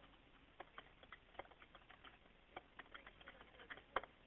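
Faint, irregular clicks of typing on a computer keyboard, heard over a narrow-band 911 call recording, with one sharper click about four seconds in.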